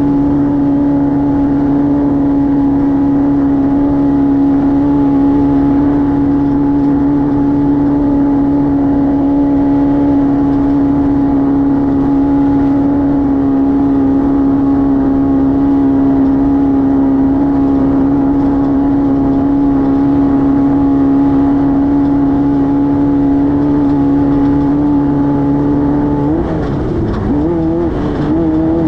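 Class 5-1600 race car's air-cooled 1600 cc Volkswagen flat-four held at steady high revs under load. Near the end the engine note drops and wavers as the throttle comes off and goes back on.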